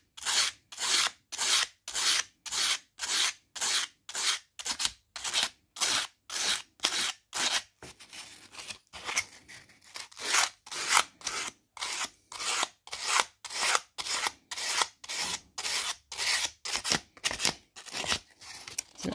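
Wet-and-dry abrasive paper rubbed by hand back and forth across the steel teeth of an English pricking iron, a dry rasping stroke about two or three times a second, a little softer around eight to ten seconds in. The abrasive is smoothing off snags and polishing the tines.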